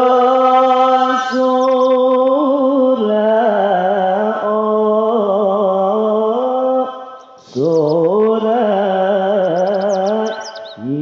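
A man singing Javanese sholawat into a microphone, drawing out long held notes with wavering ornaments, breaking off briefly about seven seconds in before starting a new phrase.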